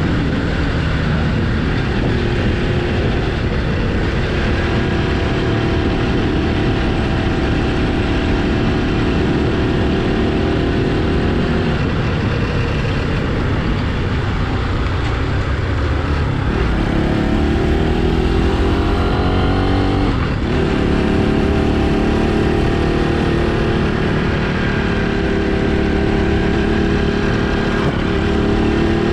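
Motorcycle engine running while riding, its note holding steady, dropping away about two-thirds of the way through, then climbing again as the throttle is opened.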